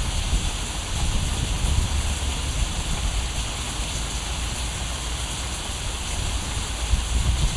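Steady rushing noise with a deep, uneven rumble underneath.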